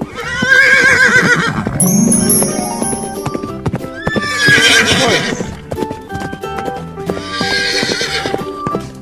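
Horse whinnying three times, each a wavering call, over clip-clopping hoofbeats, with light background music.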